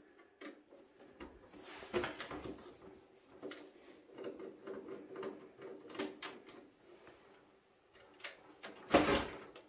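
Screwdriver and hands working a screw out of a printer's plastic housing: scattered light clicks and knocks, with a louder knock about nine seconds in.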